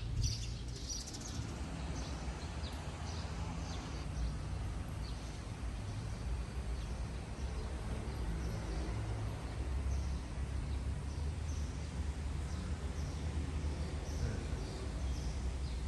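Many birds chirping over and over, short high chirps scattered throughout, over a steady low rumble.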